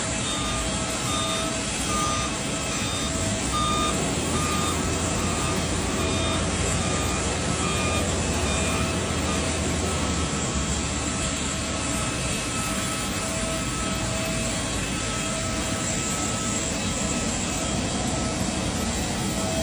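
Steady jet engine noise, with a service truck's reversing alarm giving evenly spaced beeps, a little more than one a second, that stop and start again.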